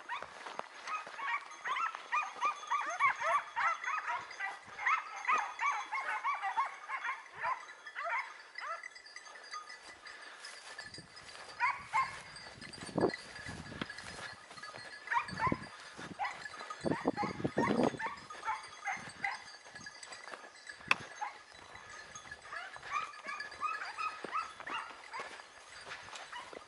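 Hunting hounds yelping in quick, overlapping cries while running a hare. The cries come thick for the first several seconds, turn sparse, and pick up again near the end. A few low thumps in the middle come from someone moving over the rough ground.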